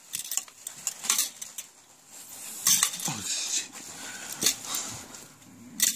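Mini desktop foosball table rattling and clicking as the metal rods are spun and slid and the little players knock the small ball around, an irregular metallic clatter.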